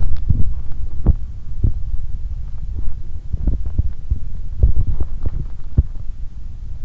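Human stomach and bowel sounds: a steady low rumble with short, irregular pops and gurgles about once a second, from an upset stomach during period cramps.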